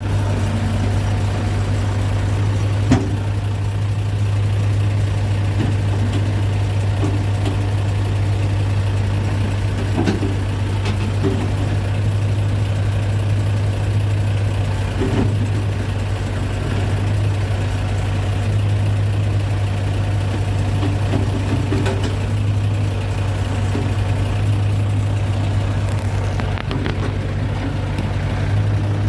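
Excavator's diesel engine running steadily with a low drone, with a few scattered knocks and clanks, the sharpest about three seconds in.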